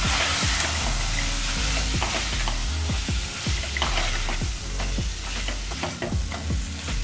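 Metal spoon stirring and scraping sprouted black chickpeas and masala around a pressure cooker pan, with repeated knocks against the pot's side. The spiced mixture sizzles in hot oil while it sautés.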